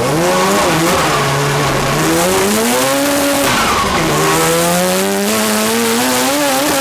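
Mazda RX-7 drift car's rotary engine revving hard from inside the cabin over a steady hiss of sliding tyres. The engine's pitch climbs, drops sharply about three and a half seconds in, then climbs steadily again.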